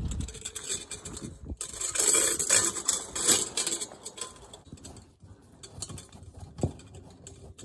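Flexible corrugated metal exhaust pipe being handled and fitted onto a diesel heater's exhaust port: rustling metal scraping with light clinks, loudest about two to three seconds in, then scattered quieter clicks.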